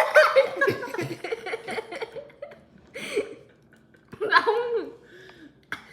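People laughing and giggling in short bouts, without words, loudest in the first second and a half.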